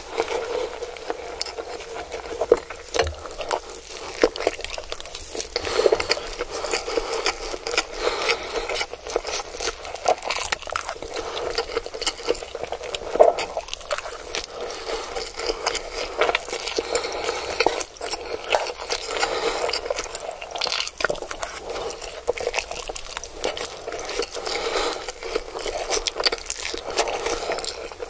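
Close-miked eating of Indomie goreng stir-fried instant noodles: wet chewing and slurping, a constant stream of small smacks and clicks.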